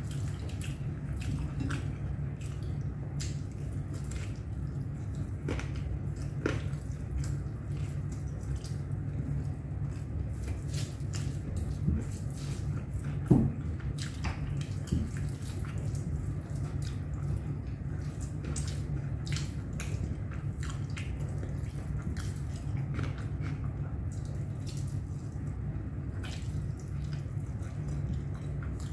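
A person eating rice by hand: scattered small wet clicks and smacks of chewing, with fingers working rice on a plate, over a steady low hum. One sharper click comes about halfway through.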